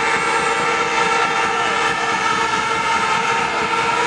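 Many horns blown together by a crowd of demonstrators: a dense, steady blare of overlapping horn tones.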